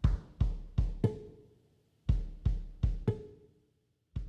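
A short drum phrase played twice: four booming drum hits, about one every third of a second, each ringing out and fading, then the same four again about two seconds in.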